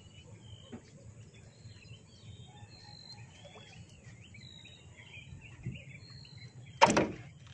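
Birds chirping and twittering throughout, over low outdoor background noise, with one brief loud noise near the end.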